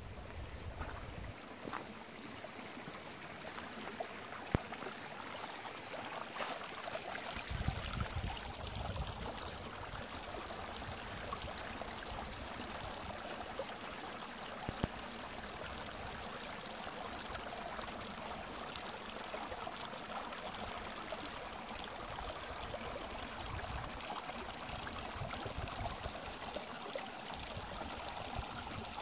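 A small, shallow mountain brook running over rocks and pebbles: a steady, even rush of flowing water.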